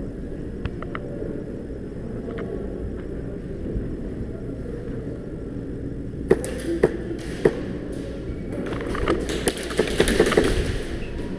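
Airsoft gunfire: about six seconds in, three sharp cracks roughly half a second apart, then near the end a denser string of rapid cracks, the loudest part, over a steady low rumble.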